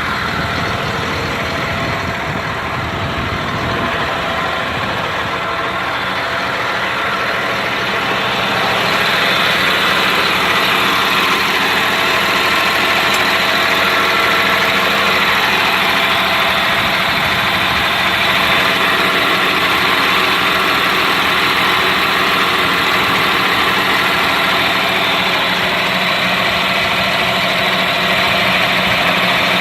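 Caterpillar C7 inline-six diesel of a Blue Bird Vision school bus idling steadily, growing louder about nine seconds in and then holding.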